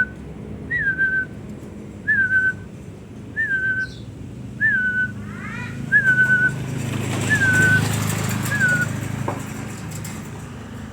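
Short whistled note repeated about nine times, roughly every second and a half: each one a quick upward flick that settles onto a steady tone. A brief series of quick rising chirps comes in the middle, and a rustling noise near the end.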